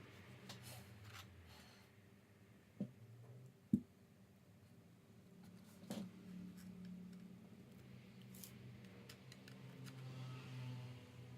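Small tools and laptop parts being handled on a work surface: a few sharp clicks and light knocks, the loudest a little under four seconds in, with fainter ticks, over a low steady hum.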